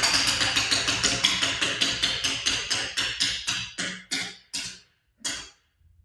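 Spinning bingo wheel clicking as it turns: a fast run of clicks that spread out steadily as the wheel slows, the last one coming about five seconds in as it stops.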